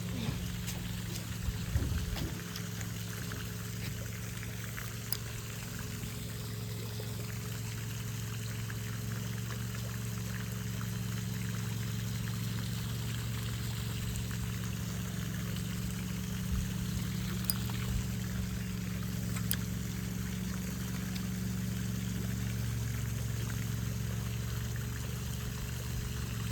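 Steady trickling, pouring water, with a low steady hum underneath.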